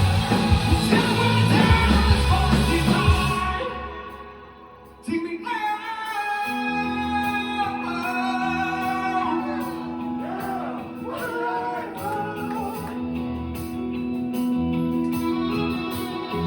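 Live rock band heard from the crowd in a large hall: a loud full-band passage with heavy drums fades out about four seconds in. After a short lull a quieter passage starts with held instrument notes, a singer's gliding voice and steady bass notes.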